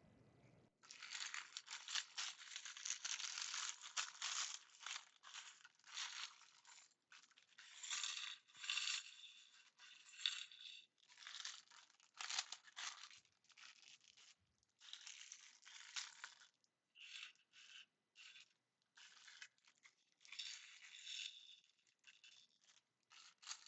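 Plastic bag of Lego pieces crinkling and being torn open, with loose bricks rattling inside, in irregular faint bursts.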